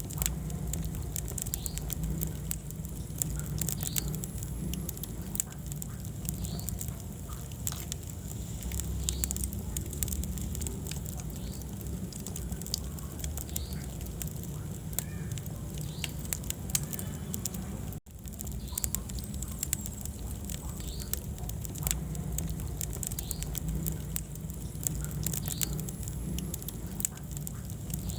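Wood fire burning in a fireplace: irregular sharp crackles and snaps over a steady low rumble. There is a momentary dropout about two-thirds of the way through.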